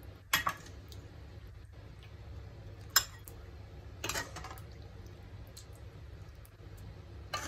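Metal serving spoon knocking against a glass bowl and the rim of a pan as curry is spooned into the bowl: a few separate sharp clinks, the loudest about three seconds in.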